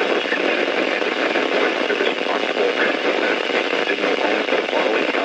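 A NOAA weather radio receiver's speaker playing a weak broadcast buried in steady static hiss, with a faint voice only partly coming through the noise. The sound is narrow and tinny, with no alert tones.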